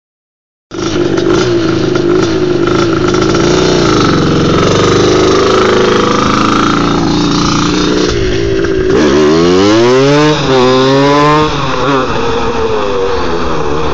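Suzuki LT250R quad's two-stroke single-cylinder engine running hard on a fly-by. About nine seconds in its pitch drops, then climbs steeply, dips and climbs again as the throttle is worked, before settling to a steady high note.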